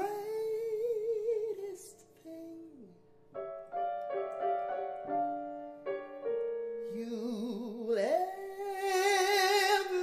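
A man singing long held notes with wide vibrato, accompanied by a grand piano. The voice drops out for a few seconds while the piano plays chords, then comes back about seven seconds in and climbs to a long, high held note.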